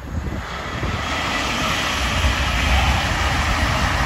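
CrossCountry Voyager diesel-electric multiple unit passing close by at speed: a loud rush of wheels on rail and air over the body over a low rumble, swelling from about half a second in and staying loud.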